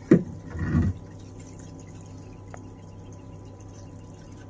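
Water splashing and dripping in a shower pan as hands wash a small wet puppy, with two short splashes in the first second, then a low steady hum underneath.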